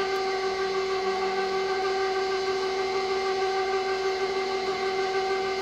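KitchenAid stand mixer running its meat grinder attachment, a steady motor whine that holds one pitch throughout, grinding lamb and cheap-cut steak into hamburger.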